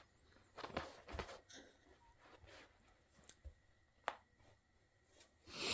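Cat's claws scratching at a leather chair: faint, irregular scratches, with a sharp click about four seconds in and a louder scratch near the end.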